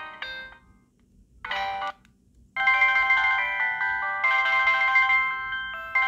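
Polyphonic ringtones playing from a Samsung SGH-D600 mobile phone. One tune dies away in the first half second, a brief burst of notes comes at about a second and a half, and a new melody starts about two and a half seconds in and keeps playing.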